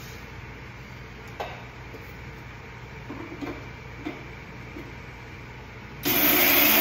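A few light clicks and knocks, then about six seconds in an electric mixer grinder switches on and runs loud, grinding roasted whole spice seeds.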